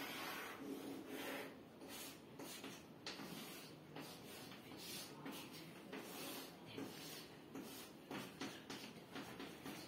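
Chalk being drawn across a blackboard: a run of faint, short, irregular scratchy strokes.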